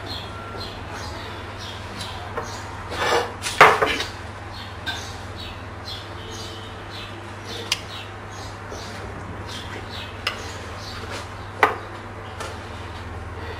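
Kitchen utensils clattering as a bowl and pastry brush are knocked and set down beside a pan, loudest three to four seconds in, followed by a few single sharp clicks, over a steady low hum.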